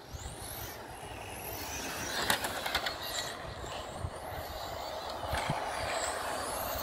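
Electric RC cars running: high motor whines rise and fall several times over a steady rushing noise, with a quick rattle of clicks a little over two seconds in.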